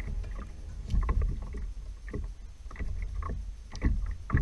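Water lapping and a low wind rumble around a Hobie Pro Angler 12 fishing kayak, with scattered short clicks and knocks as a spinning rod and reel are worked.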